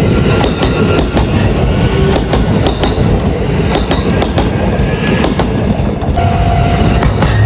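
Train wheels passing over bolted rail joints at close range: repeated clunks of clickety-clack as each wheelset crosses the joint, over a continuous low rumble. A faint steady high tone comes in about six seconds in.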